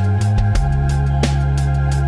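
Background music with sustained bass notes and a regular drum beat.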